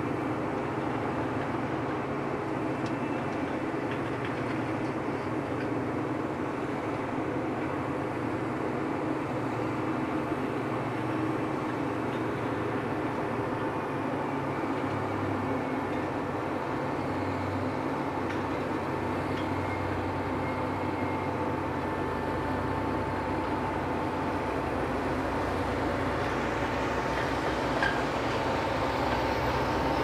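John Deere 8335R tractor's six-cylinder diesel running steadily under load as it pulls a 24-row planter across the field, growing louder over the last third as it comes closer. A steady high whine runs along with it.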